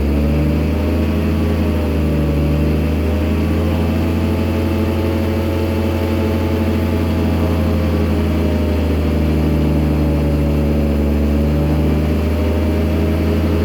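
Auger drilling machine running steadily: a loud, continuous low drone whose pitch drifts slightly up and down.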